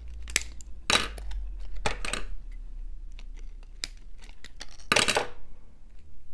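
Small scissors snipping at a bottle-brush tree, with a series of sharp snips and clicks and a longer scraping rustle about five seconds in.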